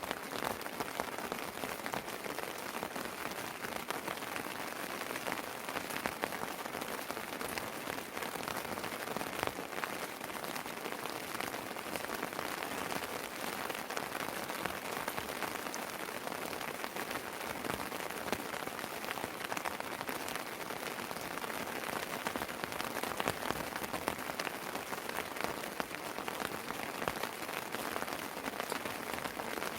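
Steady rain falling and pattering on surfaces, with many close individual drops ticking through an even hiss.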